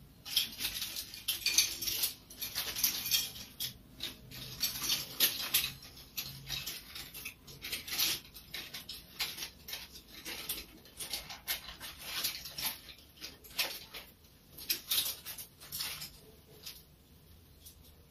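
Irregular rapid clicking and scratchy rustling, in dense clusters that thin out near the end.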